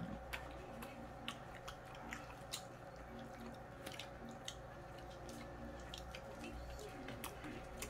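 Close-up eating sounds: chewing, with scattered small clicks and taps from handling food and utensils at the takeout containers, over a low steady hum.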